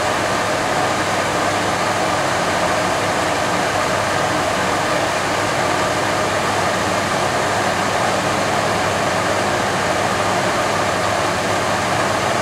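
Nordyne wall furnace blower, driven by a new Genteq 1/6 hp motor, running with a steady, even rush of air.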